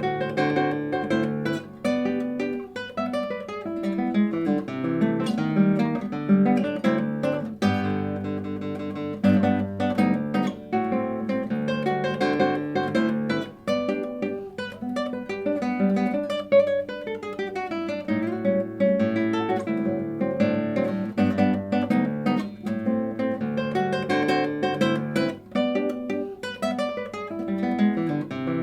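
Solo classical guitar playing a lively piece: quick plucked melody notes over a stepping bass line, without pause.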